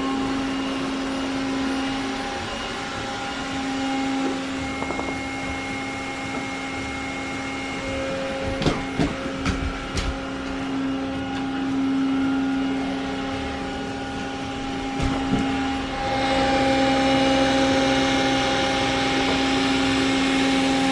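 Roborock Xiaowa E35 robot vacuum cleaner running with a steady motor hum and whine, with a few sharp knocks about halfway through; it gets louder for the last few seconds.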